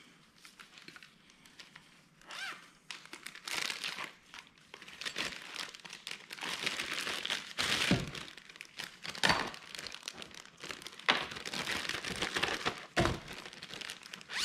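Clear plastic parts bags crinkling and rustling as they are handled and opened, irregular and crackly, with a few knocks from parts or the bag hitting the bench.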